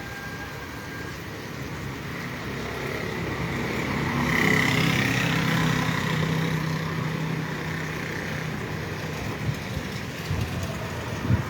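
A motor vehicle passing by: its engine and tyre noise grow to loudest about four to six seconds in, then fade back into steady traffic noise.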